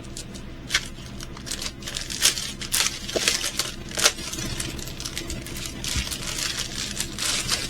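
Crinkling and rustling of the plastic packaging and cover sheet of a diamond painting kit being handled, with scattered sharp crackles and a denser stretch of rustling in the second half.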